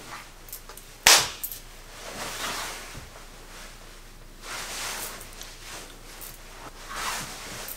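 A single sharp knock about a second in, then soft rustling that swells and fades every two seconds or so.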